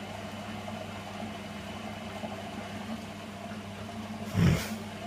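Servis Slimline 308S washing machine running with a steady motor hum, and a single thump about four and a half seconds in.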